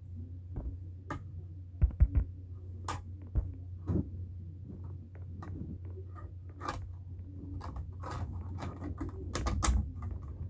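Irregular clicks and light knocks of small hard objects being handled, a few louder ones about two seconds in and more of them near the end, over a steady low hum.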